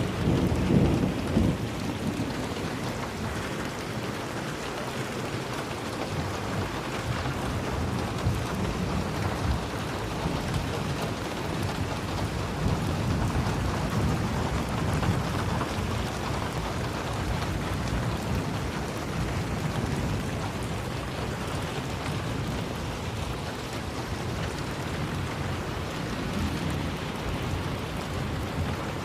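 Steady rain falling, with low rumbles of thunder that are loudest about a second in and swell again midway.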